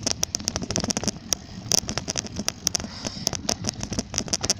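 A bicycle being ridden, rattling and clattering with irregular sharp clicks several times a second over a steady hiss.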